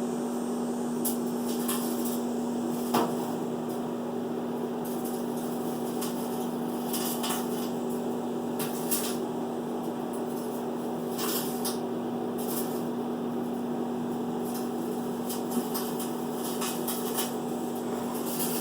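Microwave oven running on high, a steady electrical hum with fan noise, heating an open metal can of chili. A dozen or so short, sharp clicks are scattered over the hum, the strongest about three seconds in.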